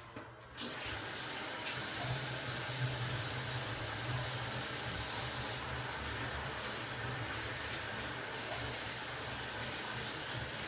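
Bathroom sink tap turned on about half a second in, the water running steadily into the basin while hands are washed under it.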